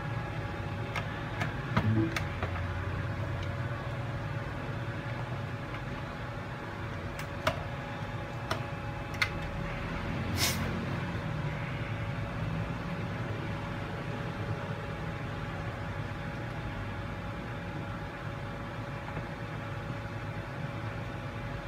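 Steady electrical hum over a low rumble, with a few light clicks and taps in the first half and one short hiss a little before the middle.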